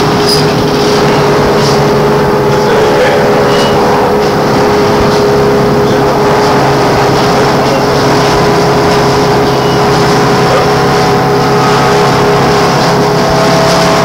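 MAN articulated trolleybus heard from on board while it runs: a steady electric whine over road and cabin noise. A higher tone creeps up in pitch near the end.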